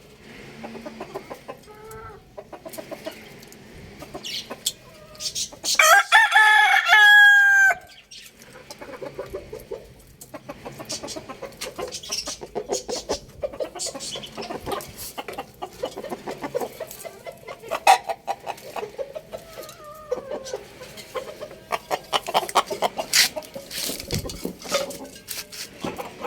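Young rooster crowing once, loud and lasting about two seconds, about six seconds in. Around it, quieter chicken clucking and many short sharp clicks.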